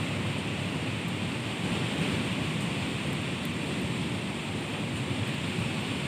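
Strong wind blowing through leafy trees and shrubs: a steady rushing noise, with a choppy low rumble of wind buffeting the microphone.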